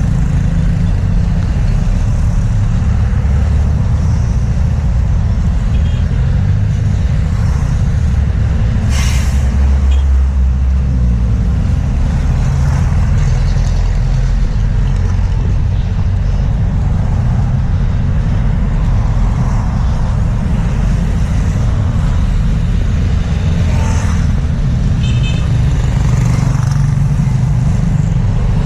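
Street traffic: vehicles passing with a steady low rumble, with a couple of short sharp sounds, one about nine seconds in and another near the end.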